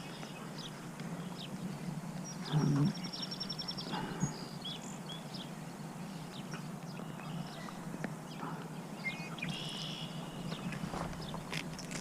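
Outdoor ambience with birds chirping and trilling on and off over a steady low hum. A brief, louder low sound comes about two and a half seconds in.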